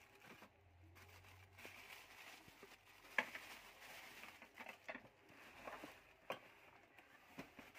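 Faint rustling and crinkling of a thin plastic bag being pulled about around a welding machine in its box, with a few sharp crackles, the loudest about three seconds in.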